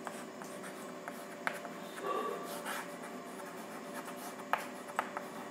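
Chalk writing on a blackboard: faint scratching with a few sharp taps as the chalk strikes the board.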